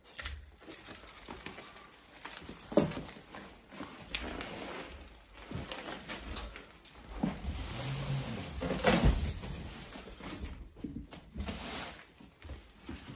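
Tall cardboard box being pulled off and handled around a boxing heavy bag: irregular rustling, scraping and knocks of cardboard, with a louder scraping swell about two-thirds of the way through, and light clinks from the bag's metal hanging hardware.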